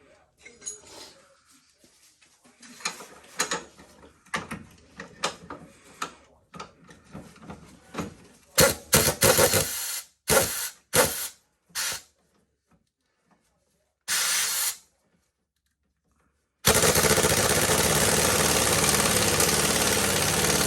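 Tools clinking and knocking on metal parts. Then a power tool runs in several short bursts about halfway through, and runs steadily for about five seconds near the end.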